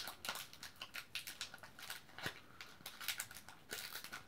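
Foil wrapper of a Magic: The Gathering booster pack crinkling and tearing as it is pulled open by hand, a faint run of small irregular crackles and clicks.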